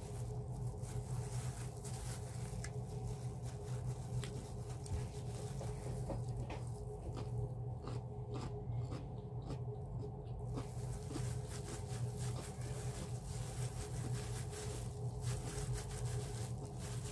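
Eating sounds: soft chewing and a plastic-gloved hand working rice and chicken on a plate, heard as scattered small clicks and scrapes over a steady low hum.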